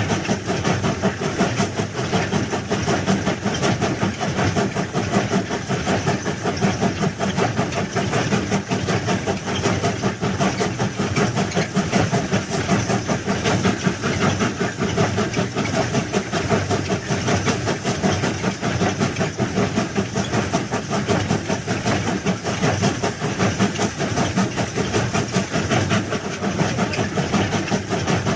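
Train running along the track: a steady, loud running noise with fast, even rattling that does not change.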